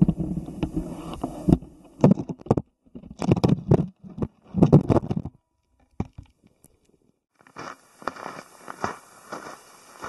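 Muffled low rumbling and knocking picked up by an underwater camera beneath the ice, coming in three short bursts after the opening rumble. After a short silence, about seven and a half seconds in, boots crunch through snow at a walking pace.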